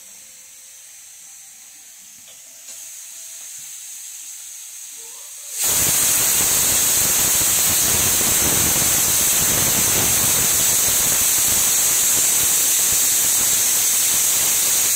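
Pressure cooker venting steam: a loud, steady hiss that starts suddenly about five and a half seconds in and cuts off suddenly, after a fainter hiss.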